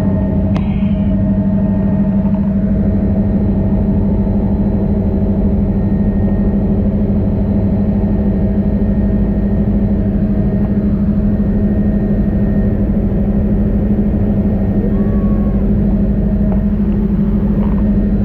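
Helicopter running steadily: a loud, unchanging low hum with a strong steady tone, holding constant pitch throughout.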